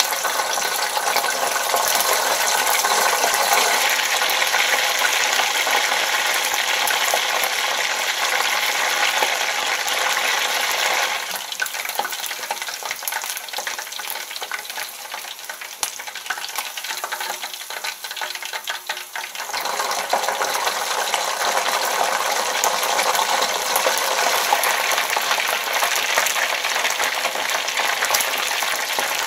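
Starch-coated chicken pieces deep-frying in hot oil: a dense, steady sizzle and crackle. It drops somewhat quieter for about eight seconds in the middle, then comes back up to full strength.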